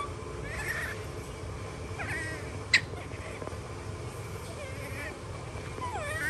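Short, high squeaky animal calls a few times, some falling in pitch. A sharp click a little under three seconds in is the loudest sound.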